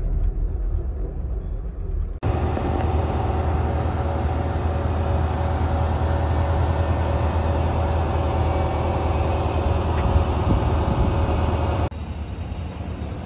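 Amtrak passenger train running: a steady low rumble and rattle with a faint steady whine. The sound jumps abruptly louder about two seconds in and drops back just as abruptly near the end.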